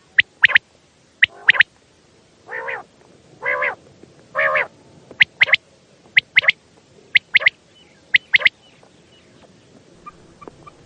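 Quail (batair) calling: short, sharp high notes in quick pairs and triplets, repeated about once a second, with three longer, lower nasal notes in the middle. The calls die away near the end.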